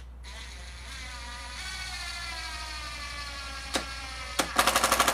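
Cordless impact driver driving a 2-inch wood screw: the motor whines steadily, sinking a little in pitch as the screw bites, then after a click it breaks into rapid hammering from the impact mechanism near the end as the screw tightens.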